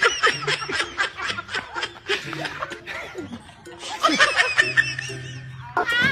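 Quick repeated bursts of laughter that die down around the middle and break out again later, over background music.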